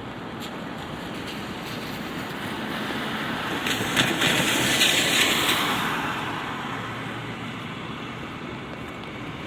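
Steady light rain, with a vehicle passing on the wet road: its tyre hiss swells to a peak around the middle and fades away.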